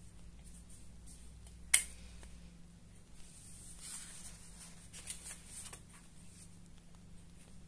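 Printed paper chart pages being lifted and handled on a table, rustling, with one sharp click about two seconds in, the loudest sound here.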